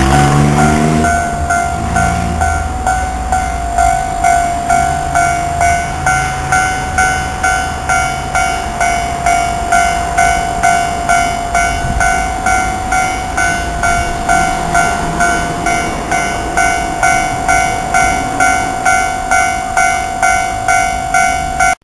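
Japanese railway level-crossing warning bell ringing steadily at about two strikes a second. A train rumbles past in the low end during the first few seconds, and again more faintly later on.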